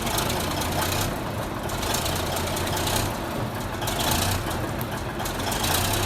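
Heavy bulldozer's diesel engine running steadily under a low hum, with surges of high-pitched noise recurring about every second and a half.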